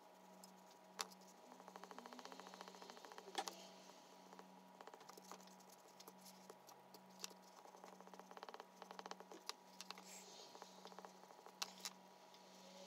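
Faint scratchy strokes of an oil pastel rubbed quickly back and forth on drawing paper, coming in runs of rapid fine ticks, with a few sharper clicks and a low steady hum underneath.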